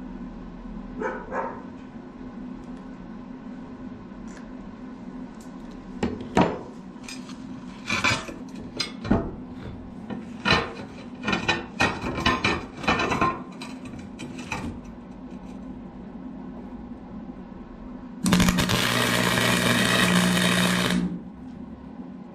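Flux-core wire welder on steel tubing. A steady hum runs throughout, with scattered short sharp crackles and clicks in the middle. About three seconds of continuous arc crackle come near the end as a weld bead is run.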